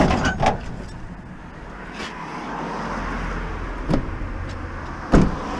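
Scrap metal knocking as it is shoved into a minivan's cargo area, then a car passing on the road and two sharp thuds as the rear hatch is shut, the second one the loudest, near the end.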